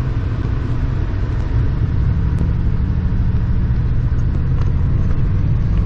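Cadillac V8 engine and road noise heard from inside the cabin while driving, a steady low rumble that grows a little louder over the first couple of seconds. The engine is running with a dead miss (a misfiring cylinder).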